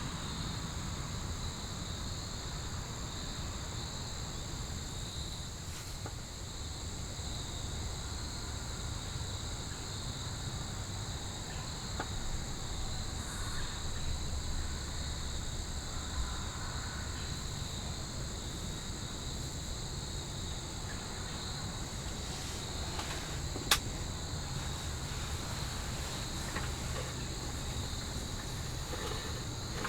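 Steady, continuous chorus of crickets and other insects, with a low rumble underneath. A single sharp click stands out about three quarters of the way through.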